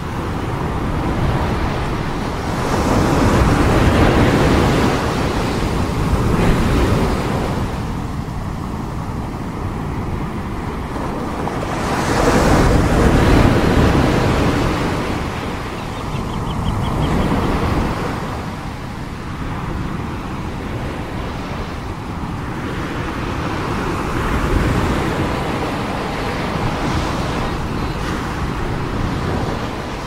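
Ocean surf breaking on a beach: a continuous rushing wash of water that swells louder several times as breakers crash, then eases between them.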